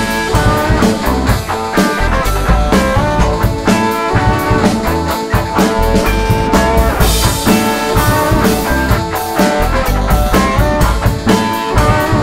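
Instrumental rock music: electric guitar playing over a drum kit, with no vocals.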